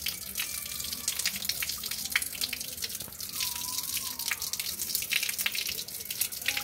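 Water running from an outdoor tap and splashing over a live tilapia held in the stream, with a steady rush and many small spattering drips.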